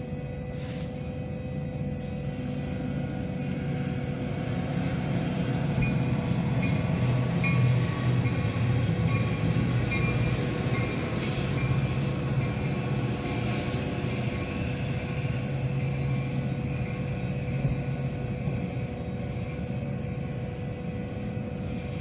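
Metra commuter train of double-deck gallery cars rolling past a grade crossing: a rumble of wheels on the rails that builds over the first several seconds and stays loud. A steady tone runs underneath throughout.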